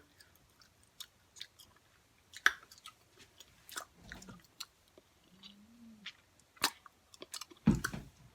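A few scattered sharp clicks and mouth smacks from a person, like gum chewing or tongue clicks, with a short closed-mouth hum about two thirds of the way in.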